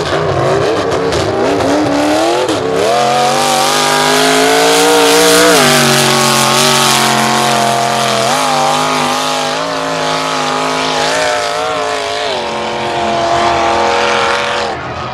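A mega truck's engine runs loud at high revs under hard acceleration through dirt. The pitch climbs early, drops suddenly about five and a half seconds in, and steps back up a little after eight seconds.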